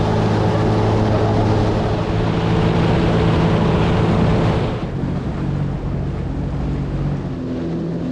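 Jet ski engine running with water and wind rushing past. The rush eases about five seconds in, and the engine note shifts near the end.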